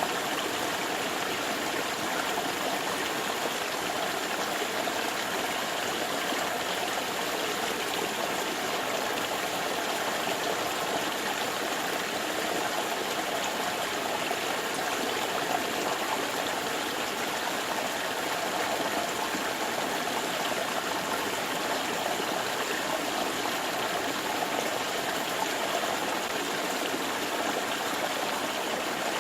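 Steady rush of flowing water, an even hiss with no separate splashes or events.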